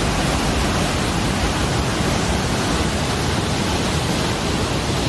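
A waterfall's falling water rushing loudly and steadily, an even hiss across all pitches that does not let up.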